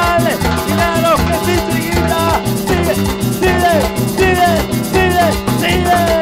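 Live band playing Latin dance music, an instrumental stretch: a lead melody of sliding, falling notes over a steady beat with bass and percussion.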